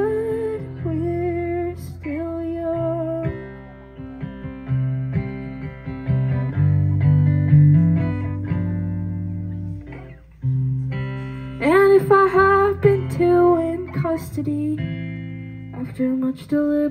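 Live song played on electric guitar, with a singing voice over it at times near the start and again about twelve seconds in.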